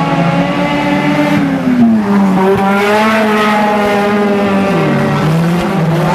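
Four-cylinder front-wheel-drive dirt-track race cars' engines revving around the oval. The main engine note drops about two seconds in, holds steady, then dips and climbs again near the end.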